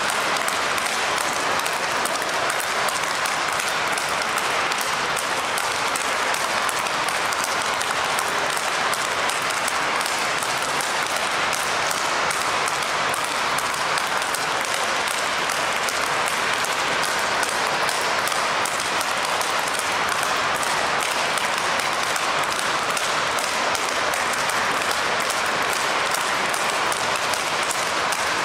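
Speedball rackets striking tethered balls in rapid succession: a fast, unbroken run of sharp hits that blur into a steady hiss.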